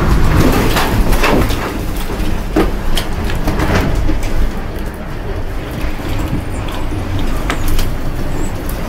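Wind of an F3 tornado rumbling low and steady against a building, with many sharp knocks, bangs and rattles of debris striking it.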